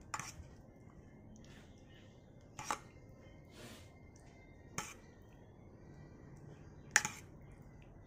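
Spoon clinking against the bowls while tomato sauce is spooned onto spaghetti: four short, sharp clinks about two seconds apart, the last the loudest.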